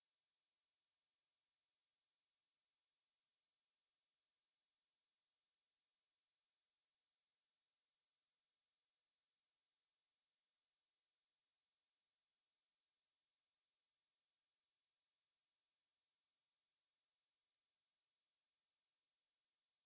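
A steady 5037 Hz pure sine-wave test tone, one high-pitched whistle-like pitch held unchanged at even loudness.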